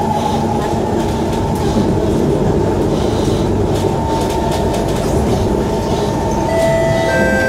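Inside a Kawasaki Heavy Industries C151 metro car running along the track: a steady rumble of wheels and running gear with faint clicks. Several steady, higher whining tones come in during the second half.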